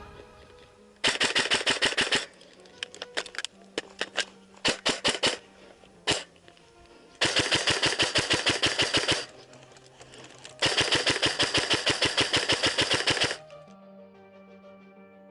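Airsoft rifle firing: a full-auto burst of rapid shots, several single or short-burst shots, then two longer full-auto bursts, the last stopping abruptly.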